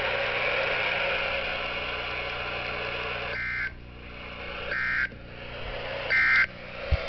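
Steady NOAA Weather Radio receiver hiss, then three short, screeching EAS/SAME digital data bursts a little over a second apart: the end-of-message code that closes the weekly test broadcast.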